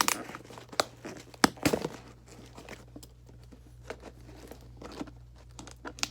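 Doorbell packaging being pulled open by hand: crinkling and tearing with irregular crackles and knocks, busiest in the first two seconds and sparser after.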